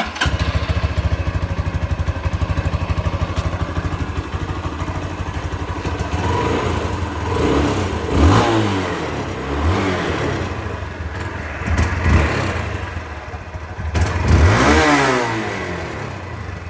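Hero Karizma ZMR motorcycle's single-cylinder engine starting up and idling with an even beat, then revved in about five throttle blips, each rising and falling back to idle, the longest near the end.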